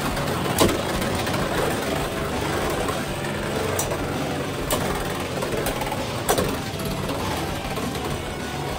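Two Beyblade X spinning tops, Viper Tail and Knight Lance, whirring as they spin across a stadium floor. A few sharp clacks come as they strike each other: the loudest about half a second in, others around four, five and six seconds in.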